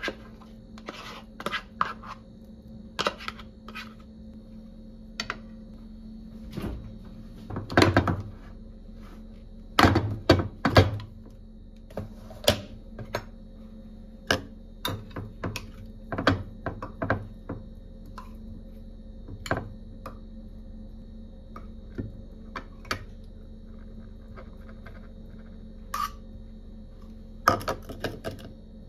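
A metal spoon scraping and tapping against a small pot and glass dishes while serving food, giving irregular clinks and knocks with a louder cluster about a third of the way in, over a steady low hum.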